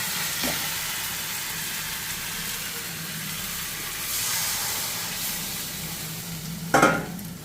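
Water poured into a hot pan of fried spice paste for an egg curry, sizzling and hissing with steam. A short knock about a second before the end.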